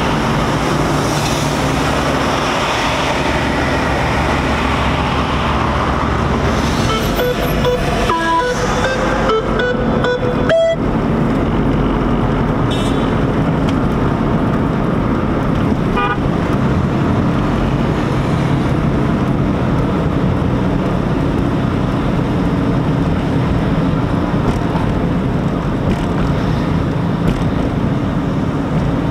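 A car driving in traffic, heard from inside the cabin: a steady engine and road drone, with a few short horn toots about eight to eleven seconds in.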